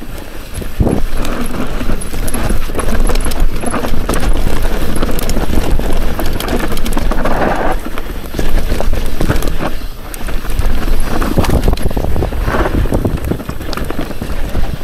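Mountain bike rolling fast down a dirt trail: tyres running over dirt and roots, with the chain and frame clattering in many sharp irregular knocks, heard close from a camera mounted on the rider.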